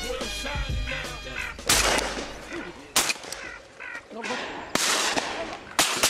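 Several shotgun shots fired at ducks flying overhead: the first about a second and a half in, another about three seconds in, and two in quick succession near the end. Hip-hop music plays at the start.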